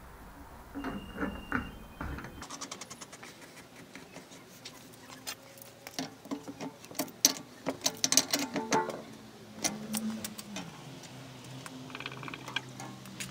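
Metal clicks and clinks of a pipe wrench working brass hose-union fittings as they are tightened, in quick irregular runs, loudest and densest a little past the middle.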